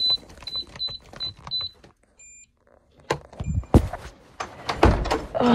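Electronic beeping: five short high beeps, about three a second, then after a pause two more single beeps, mixed with several sharp knocks and handling bumps, the loudest of them near the end.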